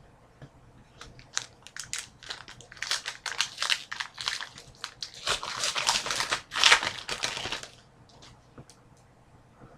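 A trading-card pack wrapper crinkling and crumpling as it is handled and torn open. The crackling starts about a second in, grows loudest past the middle, and stops near the end, leaving a few faint ticks.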